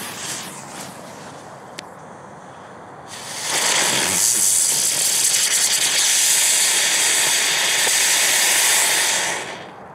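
A large Brummer XXL ground-spinner firework hissing steadily as it throws out a spray of sparks, starting about three seconds in and burning out near the end. Before it catches, the thrown fuse gives a fainter sizzle.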